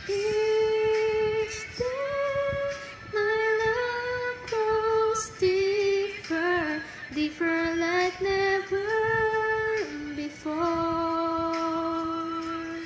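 A woman's voice singing a slow melody in phrases of long held notes, some of them wavering.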